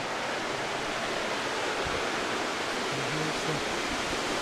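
Waterfall rushing: a steady, even roar of falling water. About three seconds in, a brief faint voice sounds over it.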